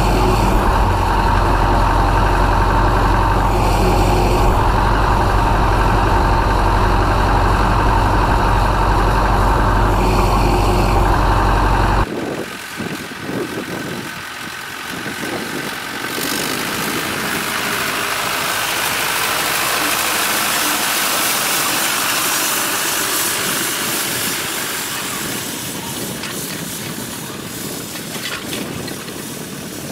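Ursus C-4011 tractor's four-cylinder diesel engine running steadily under load. About twelve seconds in, the engine sound cuts off abruptly and gives way to a steady rushing hiss with no engine, which swells and then fades.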